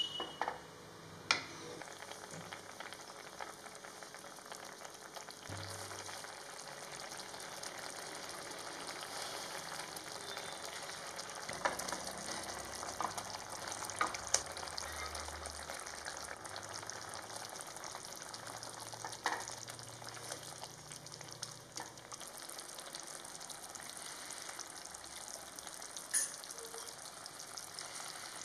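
Onion-tomato gravy sizzling in a non-stick pan as it is stirred with a wooden spatula, a steady hiss broken by a few sharp knocks.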